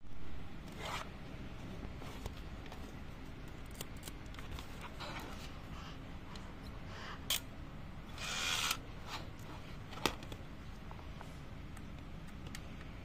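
Plastic Wizen DX AFJ-70 compact film camera being handled: scattered small clicks and rubbing of its plastic body, with two sharp clicks a few seconds apart in the second half and a short rasping sound between them.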